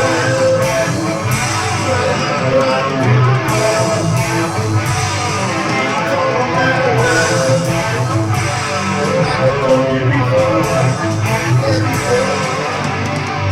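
Rock music playing loudly: a guitar-driven song with bass and a steady beat.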